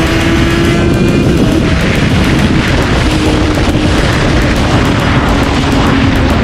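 Sport bike's inline-four engine running at high revs over heavy wind rush, its pitch climbing, then dropping sharply about a second and a half in and holding steady after.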